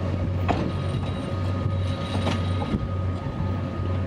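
A 1966 Skoda 1500 V DC narrow-gauge electric locomotive moving away along the track with a steady hum. Its wheels click sharply over the rails a few times.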